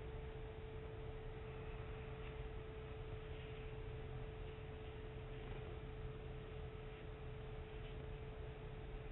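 A steady hum at one constant pitch over an even low background hiss, with no separate knocks or handling sounds.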